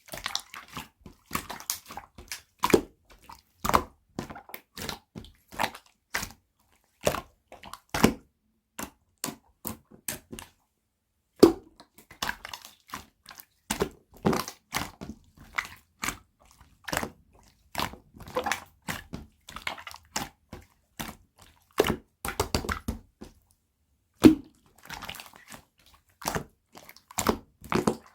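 Clear slime being squished and pressed by hand, making a fast run of short wet pops and clicks, with a pause of about a second a third of the way through.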